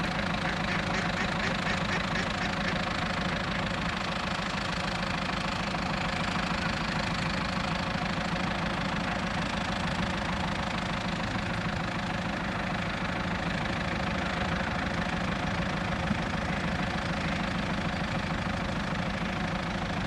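Farm tractor engine idling steadily with an even, knocking pulse.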